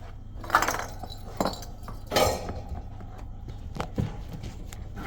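A few short clinks and clatters of small hard objects knocking together, the two loudest about half a second and two seconds in, with lighter knocks near the end.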